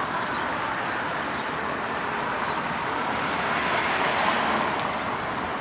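Steady road-traffic noise, an even rushing hiss that swells a little about four seconds in and then eases.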